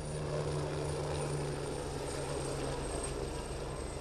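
Two light military turbine helicopters flying past low, a steady rotor and engine drone with a high turbine whine that drops slightly in pitch near the end as they go by.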